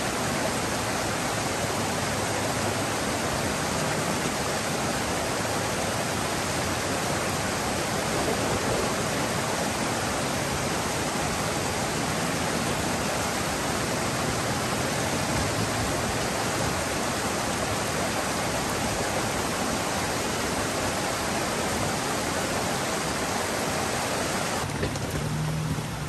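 Steady rush of a mountain creek tumbling over a boulder bed.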